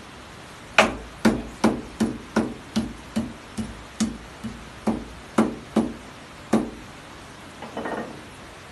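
Wooden rolling pin striking down on a stone kitchen counter about fourteen times, a little over two knocks a second, each with a short dull ring, crushing ingredients for a kadha. It stops, and near the end there is a brief scrape as the crushed pieces are gathered.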